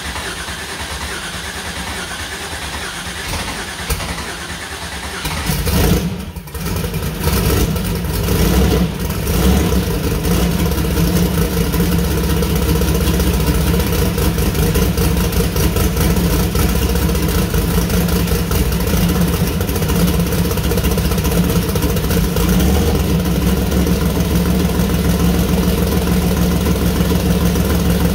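Freshly built twin-turbo 427 ci LS V8 on its first start-up: the starter turns it over for about five seconds, it catches about six seconds in and runs unevenly for a few seconds, then settles into steady running.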